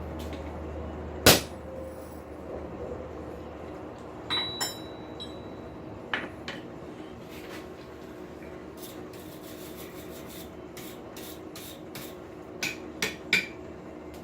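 A hammer striking a touch-mark stamp into hot forged steel: one sharp, loud blow about a second in, followed by lighter metal knocks and clinks, one ringing briefly, near the middle and three more near the end, over a steady low hum.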